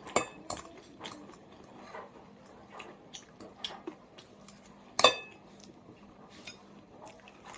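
Cutlery clinking against dishes: light scattered clicks, with one sharp ringing clink about five seconds in.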